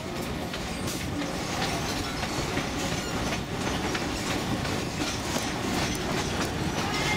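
Narrow-gauge tourist train running along the track, heard from aboard: a steady rumble of wheels on rail with frequent, irregular clicks and clacks.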